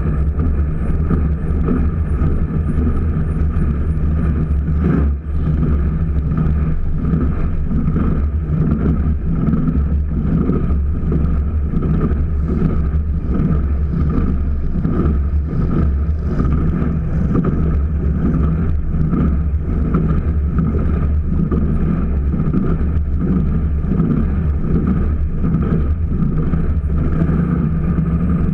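Jet boat's big-cubic-inch aluminum engine running steadily with the boat under way at speed. The engine sound dips briefly about five seconds in, then carries on at the same pitch.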